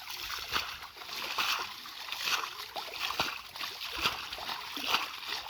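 Water being bailed by hand out of a flooded field plot and thrown aside, splashing about once a second.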